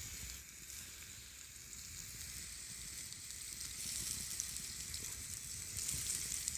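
A hot sandwich sizzling steadily as it grills in a hot sandwich press, with a constant high hiss.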